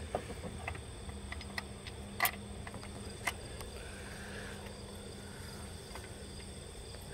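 A few faint, scattered metal clicks and taps as a mounting bolt is handled and set into a new serpentine belt tensioner, the sharpest about two seconds in. Behind them runs a steady, high chirring of crickets.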